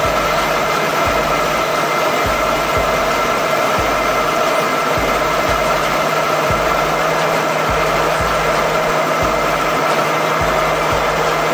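Cabin noise of a de Havilland Canada DHC-6 Twin Otter in flight: the steady drone and whine of its PT6A turboprop engines and propellers, with an uneven low rumble underneath.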